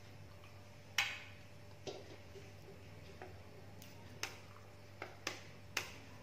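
A metal spoon clinking against a plate about half a dozen times in short, sharp clicks, the loudest about a second in, over a low steady hum.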